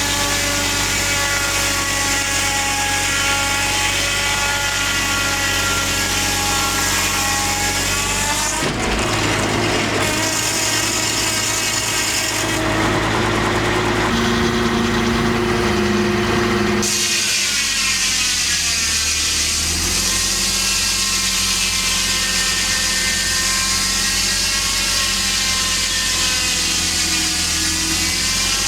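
Homemade circular sawmill running steadily as it saws a big white pine log. The sound changes character about a third of the way in and again past halfway, where its pitch sags and then climbs back.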